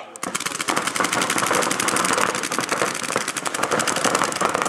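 Several paintball markers firing rapid strings of shots at once, a dense fast crackle of pops that starts a moment in and keeps up without a break.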